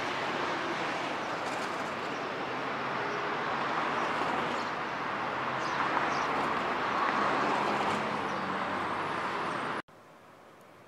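City street traffic noise: a steady wash of passing cars and vans that cuts off abruptly near the end.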